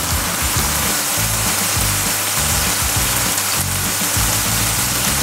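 Chicken pieces deep-frying in hot oil, a steady sizzle, under background music.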